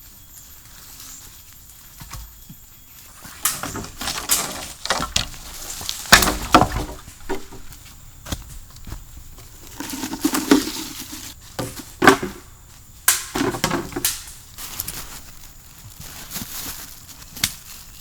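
Irregular knocks, snaps and rustling from hands-on camp work, with a dozen or so sharp strokes spread unevenly through the stretch.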